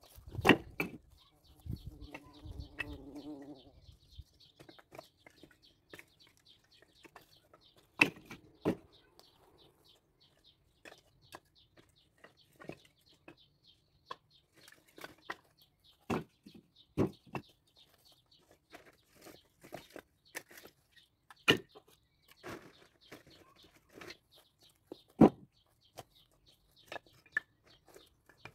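Split firewood logs knocking and clattering as they are stacked onto a woodpile, a sharp wooden clunk every few seconds. About two seconds in, an animal calls for about two seconds, and a faint steady high buzz runs behind.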